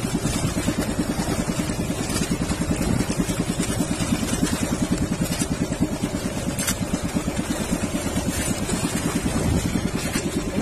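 Outrigger boat's engine running steadily with a fast, even pulse, over water splashing along the hull.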